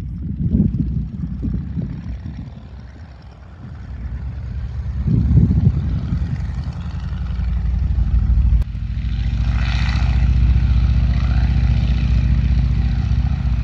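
Boeing Stearman 75 biplane's radial engine and propeller. The power comes up about a third of the way in, then holds steady and loud at takeoff power.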